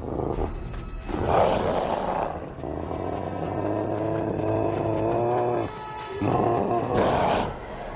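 Film soundtrack of werewolf snarls and roars: a harsh roar, then a longer pitched growl that cuts off suddenly, then a second harsh roar near the end.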